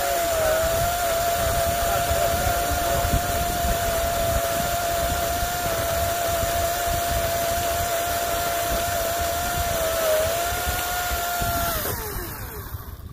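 EGO 56-volt brushless cordless chainsaw cutting through a log with a steady high whine, holding its pitch under load with only a slight dip once or twice. Near the end the whine glides down and fades as the motor winds down off the trigger.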